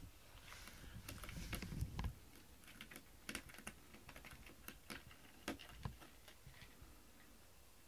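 Faint, irregular clicks and ticks of a cat's claws catching in a mat as it kneads, after a few soft thumps in the first two seconds as the cat settles onto the mat.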